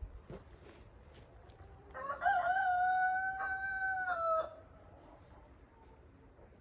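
A rooster crowing once: a single long, loud crow beginning about two seconds in, held on one pitch and dipping slightly as it ends.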